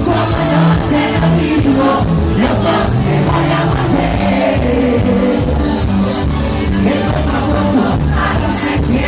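Loud live band music with a steady dance beat and a singer, with crowd noise mixed in.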